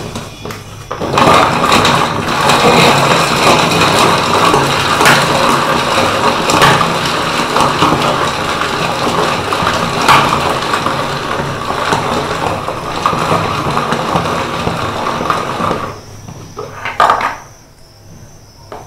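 Manual plastic vegetable chopper worked fast by hand, its blades whirring and rattling as they chop onions into a loud, continuous clatter. The clatter stops about three seconds before the end, followed by a single sharp knock.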